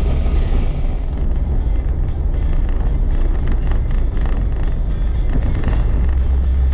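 4x4 vehicle driving, a steady low rumble of engine and road noise with scattered small knocks.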